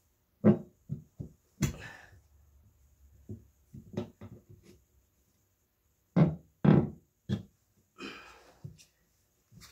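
Irregular dull thumps and knocks as an ATV tyre's bead is forced back over its rim by hand and with a metal tyre lever, the loudest about half a second in and twice around six to seven seconds in, with a couple of longer rough scraping noises between them.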